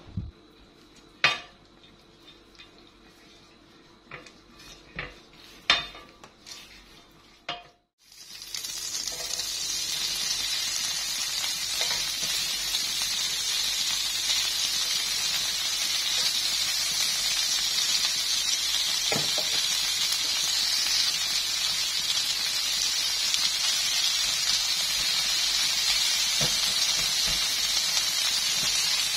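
A few sharp taps and scrapes of a silicone brush against a nonstick grill pan as fat is spread over it; then, about eight seconds in, whole head-on shrimp start to sizzle steadily in the hot grill pan.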